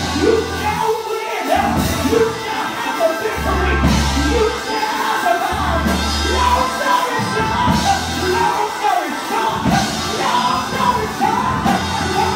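A woman singing into a microphone over live band music with long, deep bass notes.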